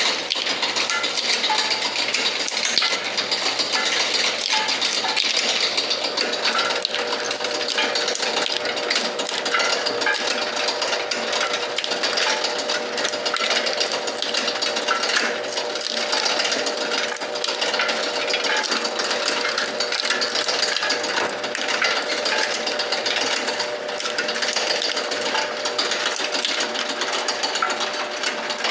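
Cashew nut shelling machine running: a fast, continuous clatter of its spring-loaded cutters cracking the nuts, with shells and kernels rattling onto the wire mesh screen, over a steady hum.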